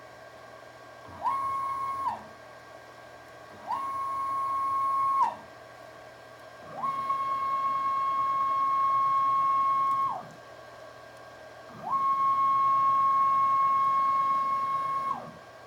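CNC-converted milling machine's axis drive motors and ballscrews traversing under Mach3 control: four separate moves, each a motor whine that climbs quickly in pitch, holds a steady tone, then drops away as the axis slows and stops. The first two moves are short and the last two run about three seconds each.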